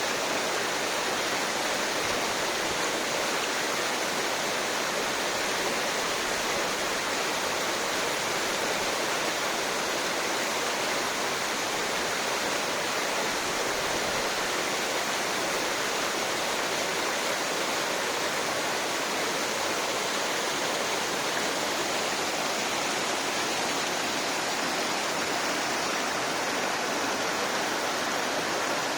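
Alpine waterfall: a steady, unbroken rush of falling and splashing water.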